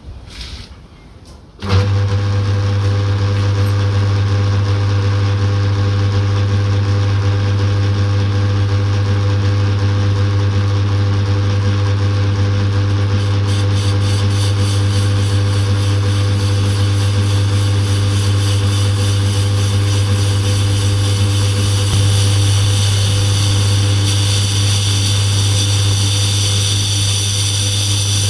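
An old Keen lathe switched on about two seconds in, then running steadily with a strong low motor hum and several steadier tones above it. From about halfway a higher whine with a fast flutter joins in.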